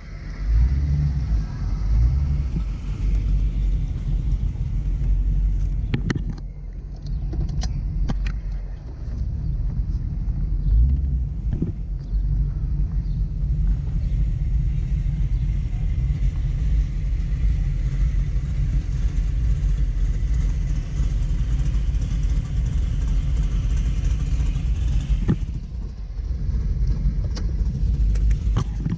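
1994 Ford Mustang GT's 5.0-litre V8 rumbling low and steady as the car drives. A few brief clicks come through between about six and eight seconds in.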